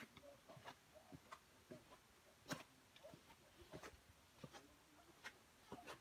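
Faint, irregular taps and clicks of footsteps on stone steps and a gravel path, a couple each second.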